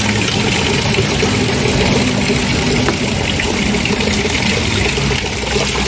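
Stream water running steadily over rocks by a small waterfall, a continuous hiss with a faint low hum beneath it.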